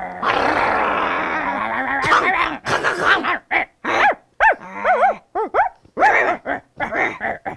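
Two people imitating a dog with their voices: a rough growl for about two seconds, then a quick run of short yapping barks, 'wal, wal', each rising and falling in pitch.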